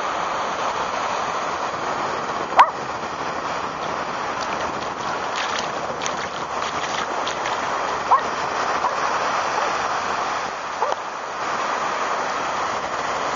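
Surf washing onto a sandy beach: a steady rush of breaking waves. Three times it is cut by a brief, sharp high-pitched squeak that slides upward.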